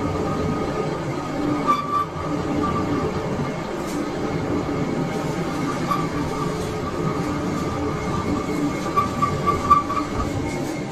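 Large engine lathe running, spinning a long forage harvester rotor shaft: a steady mechanical rumble with a thin high squeal that comes and goes, briefly louder about two seconds in and again near the end.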